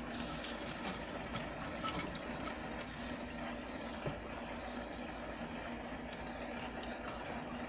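Steady rushing background noise with a faint hum and a few soft clicks.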